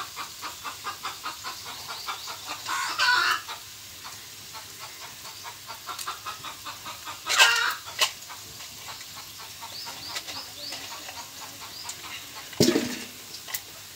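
Domestic chickens clucking close by, a quick run of clucks in the first few seconds. A few louder, sharp sounds come about 3, 7 and 12 seconds in.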